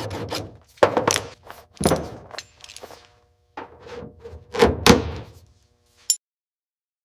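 A series of thunks and knocks, some followed by a short ring, ending with a single sharp click about six seconds in.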